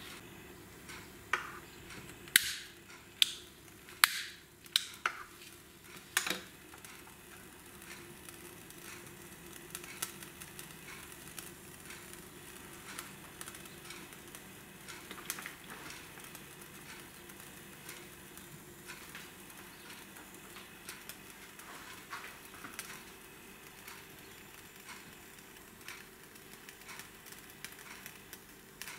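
Several sharp clicks and clinks, six or so in the first six seconds, from hands working at the spirit burner of a model Stirling engine as it is lit. After that there is a faint steady hiss with occasional light ticks.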